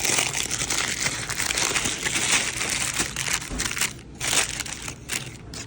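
A food wrapper being crinkled and unwrapped by hand in irregular bursts, with a brief pause about four seconds in and a few short crinkles near the end.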